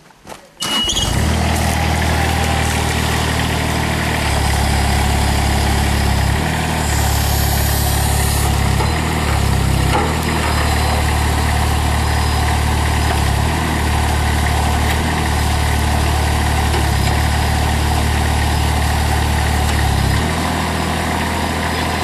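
Ditch Witch mini skid steer loader's engine starting about half a second in, then running steadily. Its note dips and shifts briefly several times as the hydraulic tree spade is worked.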